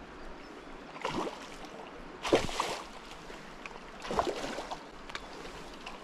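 A hooked fresh-run salmon splashing in the shallows at the river's edge, three splashes with the second the loudest, over the steady rush of the river current.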